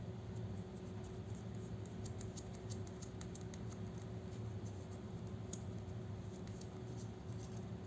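Faint scattered light clicks and scratching from small hand work, over a steady low hum.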